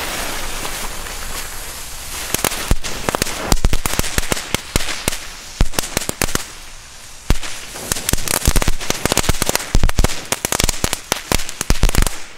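A crackling fuse cord, a small ground firework, burning: a hissing fizz at first, then from about two seconds in a rapid, irregular string of sharp crackling pops that cuts off suddenly near the end.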